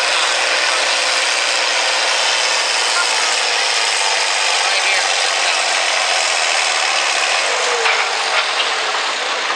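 Diesel engine of a farm-stock International tractor running steadily, hitched to the pulling sled before its pull, together with the engine of the sled's own tow tractor.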